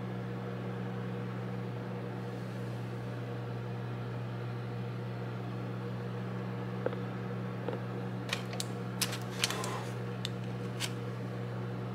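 Steady low hum of a kitchen fan, with a few light clicks and crinkles near the end.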